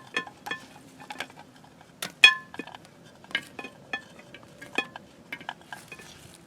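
Terra cotta clay pots and saucers clinking and knocking against each other as they are set and stacked by hand: a series of sharp clinks, the loudest about two seconds in with a brief ring.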